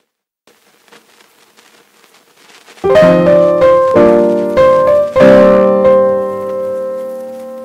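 Background piano music: after about three seconds of near silence, piano chords are struck roughly once a second, the last one held and slowly fading.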